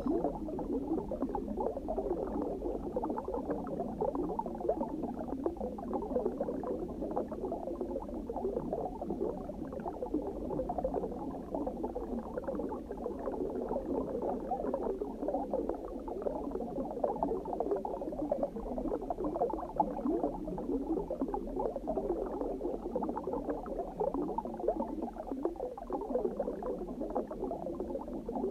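Steady underwater bubbling: a dense, unbroken stream of small bubbles, muffled, over a low rumble.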